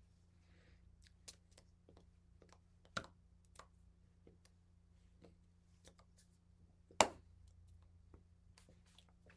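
Scattered soft clicks and taps of hands touching and brushing together while signing, with two sharper slaps about three seconds in and, loudest, about seven seconds in, over a steady low hum.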